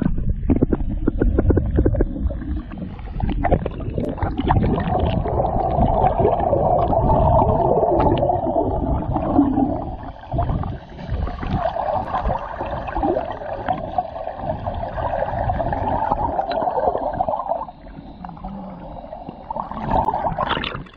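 Sea water heard from under the surface through a submerged camera: a muffled gurgling, sloshing murmur with many dull knocks as dogs paddle close by. It quietens near the end, then swells briefly.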